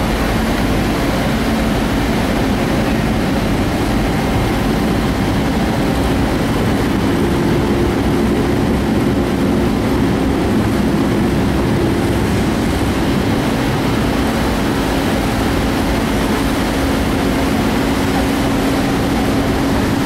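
A ferry's engines droning steadily as the ship manoeuvres into port: a dense low rumble with a steady hum, and a second, higher hum that comes in for a few seconds midway.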